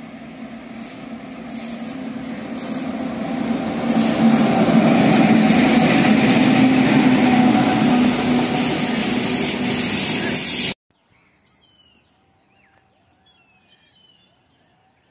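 A goods train hauled by a pair of electric locomotives passing close by: a rising rumble and clatter of wheels on rail with a steady hum, growing louder over the first four seconds and then holding loud. It cuts off abruptly about ten and a half seconds in, leaving near silence with a few faint chirps.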